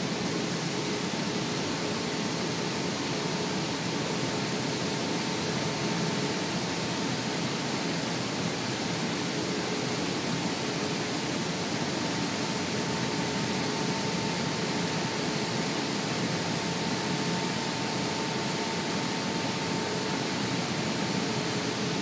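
Steady rush of water churning in a motor boat's wake, over the constant drone of its engine, which carries a faint steady hum.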